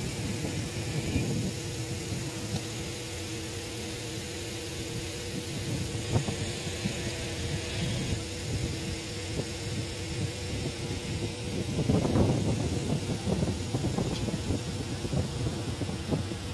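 A steady engine hum with a few held tones over a low rumble, swelling a little near the end.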